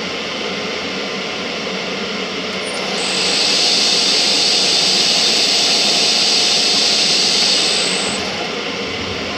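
Metal lathe switched on with a click about three seconds in, running with a loud hiss and a thin high whine while the high-speed steel bit trims a 9mm brass case against the collet-chuck stop. It is switched off with another click about five seconds later.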